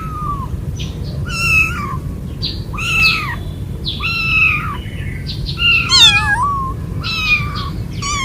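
Young kittens meowing: a string of high-pitched cries about one a second, each rising and falling, with two kittens calling over each other about six seconds in. These are distress calls of kittens away from their mother in an unfamiliar place.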